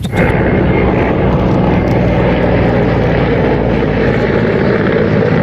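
Low-flying military attack helicopter, loud and steady with turbine and rotor noise, starting abruptly.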